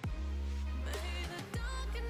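Background pop music with a deep, sustained bass and a beat.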